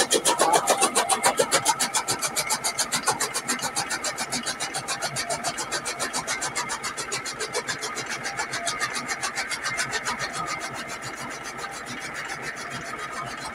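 Tractor-driven toka chaff cutter chopping green fodder: a fast, even clatter of cutting strokes from the flywheel blades over the running machine. The chopping fades and evens out over the last few seconds.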